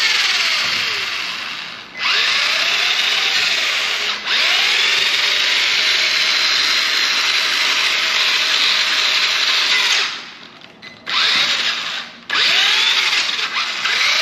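WLtoys 12404 RC monster truck's electric motor and drivetrain whining under throttle with the wheels spinning free in the air. It revs up and eases off several times, with a long steady run in the middle and a drop about ten seconds in.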